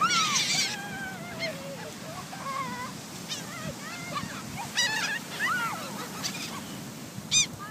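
A flock of seagulls calling over one another, short rising and falling cries scattered throughout, as they crowd in for food thrown to them. One louder, higher cry stands out near the end.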